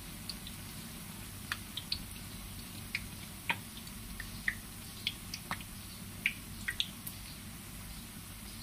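Battered, meat-stuffed chillies deep-frying in a wok of hot oil: a steady low bubbling with scattered sharp pops and crackles, one or two a second.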